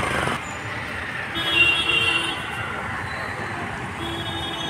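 Road traffic running past, with a vehicle horn sounding twice: held for about a second starting around a second and a half in, and again near the end.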